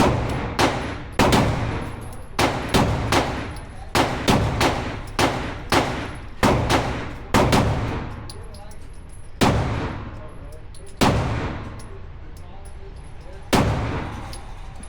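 Gunfire at a shooting range: a quick, uneven string of shots, about fifteen in the first eight seconds, then three single shots spaced a second and a half to two and a half seconds apart. Each shot has an echoing tail.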